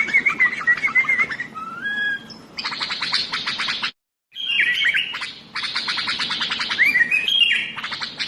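Sooty-headed bulbul (kutilang) singing non-stop: rapid runs of short chirps mixed with slurred whistled phrases. The song cuts off abruptly for a moment about four seconds in, then starts again.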